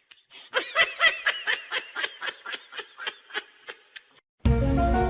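High-pitched laughter: a run of quick giggling pulses, about four or five a second, fading away over about three seconds. Music cuts in abruptly near the end.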